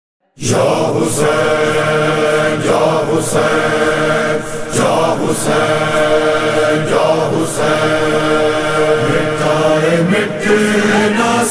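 Voices chanting in long held notes, the wordless background chorus of an Urdu noha (Shia lament), starting suddenly, with a sharp beat about every two seconds.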